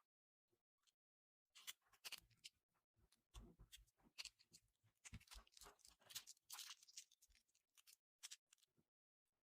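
Faint slime being played with by hand: a dense, irregular run of crackling clicks and pops that starts about a second and a half in.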